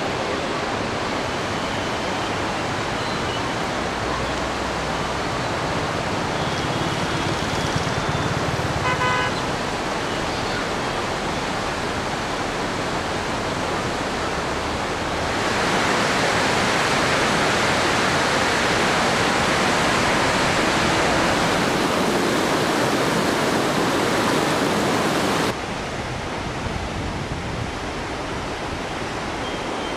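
River in spate, a steady rush of fast, churning floodwater. It grows louder about halfway through and drops suddenly near the end. A short pitched beep sounds about nine seconds in.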